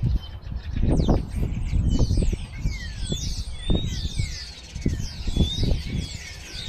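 Small birds chirping and twittering, many short falling chirps, over a low rumble with a few knocks and handling sounds.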